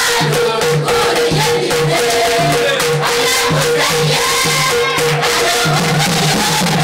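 A choir of young women singing together. Hand-clapping and a rattling, shaker-like percussion keep the beat, with a low pulse about twice a second.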